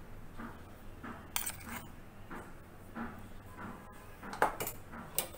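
A metal spoon clinking a few times against a steel bowl as spoonfuls of rice flour are added: two clinks about a second and a half in, three more near the end.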